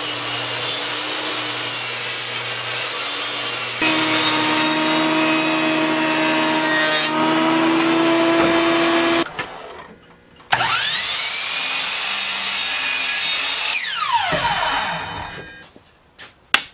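Woodworking machines, a table saw and a jointer, running as red cedar slats are ripped and jointed to width, in a steady loud whine that changes pitch about four seconds in and stops abruptly near the middle. After a short gap a machine motor switches on and whines up to speed, runs for about three seconds, then winds down after being switched off, followed by a sharp knock.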